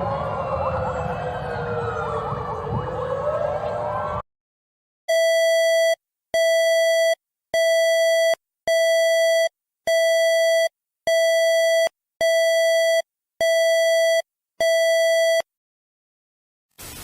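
Several sirens wailing, rising and falling over one another, cutting off about four seconds in. After a short pause, a steady electronic alert beep sounds about ten times at an even pace, each beep just under a second long with short gaps between.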